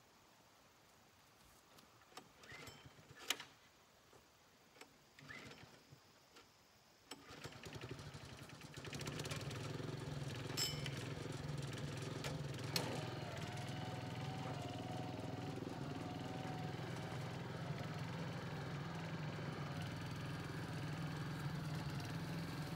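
A few scattered knocks and clicks, then an engine starts about seven seconds in and settles into a steady run.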